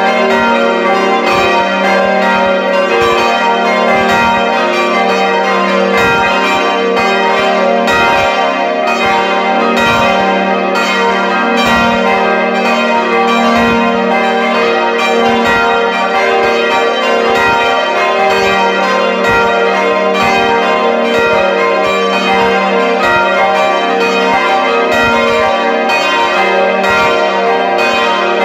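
Full peal of five swinging church bells tuned g', b', c'', d'' and e-flat'' ringing together, heard close up inside the belfry. Four of the bells are 1962 Schilling bronze bells and one is a 1772 Stapf bell. The strikes overlap continuously and loudly, with a steady low hum from the largest bell under them.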